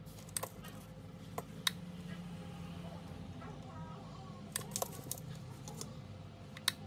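Sharp small clicks and taps of a pulse soldering gun and wires being handled while soldering leads onto an LED strip, about seven in all, spread unevenly, over a low steady hum.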